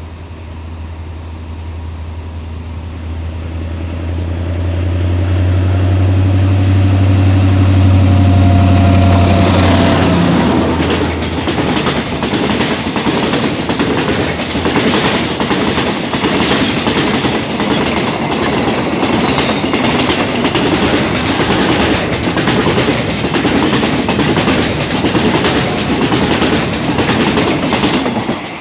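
A diesel locomotive approaches and passes with a deep, steady engine drone that grows louder. About ten seconds in, a long train of oil tank wagons rolls by close up, with loud steady rattling and rapid clicking of wheels over the rail joints.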